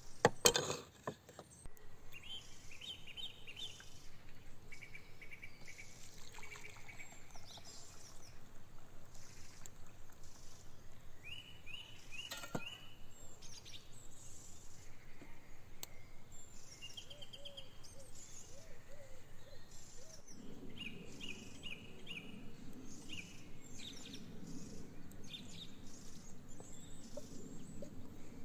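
Small birds chirping in short repeated trills. There is one sharp knock just after the start, and a steady low rumble sets in about two-thirds of the way through.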